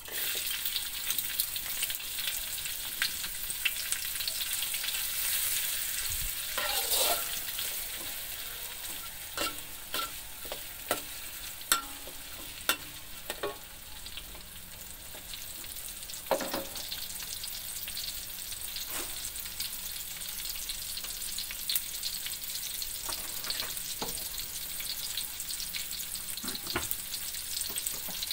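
Sliced chilies, shallots, garlic and ginger sizzling in hot oil in a metal wok, the hiss starting suddenly as they are tipped in. A metal spatula scrapes and knocks against the wok now and then as they are stir-fried.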